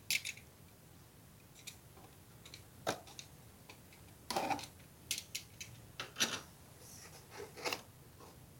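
Box cutter slicing through packing tape and a cardboard parcel, heard as a string of short scrapes and clicks, then cardboard rustling and scraping as the flaps are pulled open.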